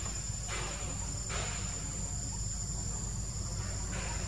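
Insects shrilling in a steady, high-pitched drone, with a few brief rushes of noise coming and going over it.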